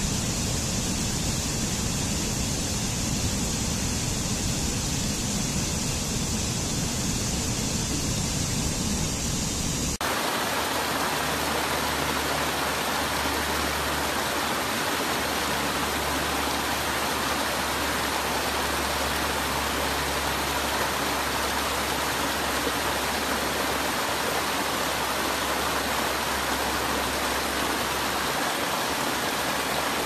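Steady rush of water from a rocky stream cascading over small falls. About ten seconds in, the sound changes abruptly to a brighter, hissier rush of water spilling over rock ledges.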